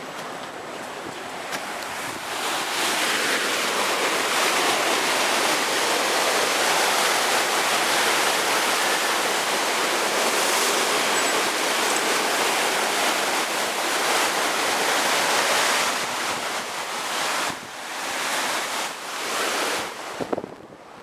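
Sea waves breaking and washing in a steady rush. It builds over the first couple of seconds, holds for about fourteen seconds, then comes and goes in shorter surges near the end.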